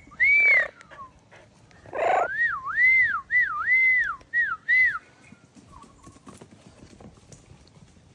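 Parrot whistling: one short rising-and-falling whistle at the start, then, after a brief harsher burst about two seconds in, a run of six looping whistled notes, each rising and falling, that stops about five seconds in.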